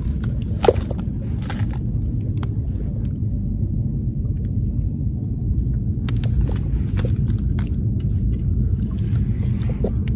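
A steady low rumble, with scattered light clicks and knocks from scoop nets being handled and sandals moving over the rocks; the sharpest knock comes about a second in.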